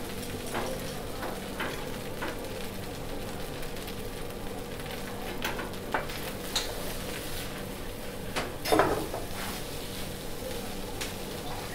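Shrimp fried rice sizzling in a hot pan as it is stir-fried, with a spatula scraping and knocking against the pan now and then.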